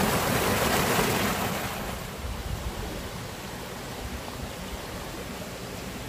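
Mountain stream splashing over mossy rocks in a small cascade, a steady rushing hiss that is louder for the first couple of seconds and then settles to a softer flow.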